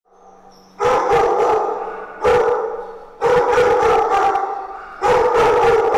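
Dogs barking in shelter kennel runs, in four loud bursts of several barks each, with the sound echoing off the hard kennel walls and floor.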